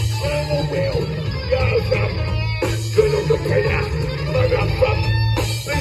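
Live punk band playing loud: distorted electric guitar, bass and drums, with a man shouting and singing the lyrics into a microphone.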